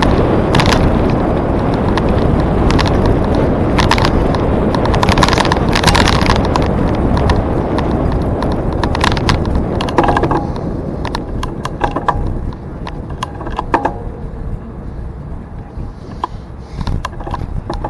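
Wind rushing over the microphone of a camera on a moving bicycle, with scattered clicks and rattles from the bike on the trail. The rush eases off after about ten seconds, as if the bike slows.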